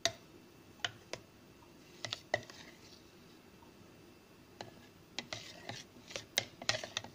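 A metal spoon scraping and clicking against the sides and bottom of a plastic measuring jug while stirring chilled lemon syrup: scattered sharp scrapes in the first couple of seconds, then a quicker run of them near the end.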